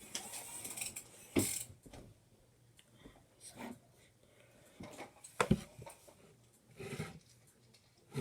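A spatula stirring lotion into a slime mixture in a bowl: irregular scrapes and sticky clicks, busiest in the first two seconds and then scattered.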